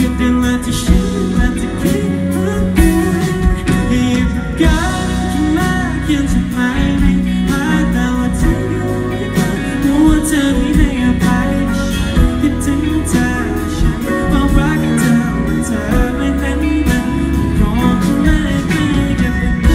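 Live rock band playing a song on electric guitars, bass, keyboard and drums, with a male lead singer singing over it.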